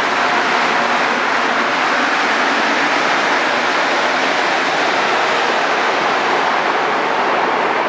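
Rubber-tyred Montreal Métro train moving along the station platform: a loud, steady rushing noise with no distinct clicks or knocks.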